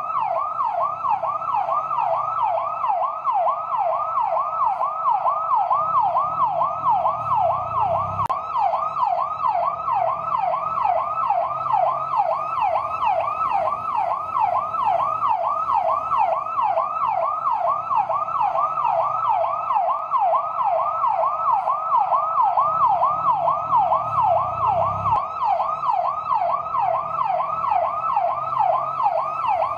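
Fire truck electronic siren on its yelp setting: a steady run of rapid up-and-down wails, about three a second. A faint low rumble sits underneath.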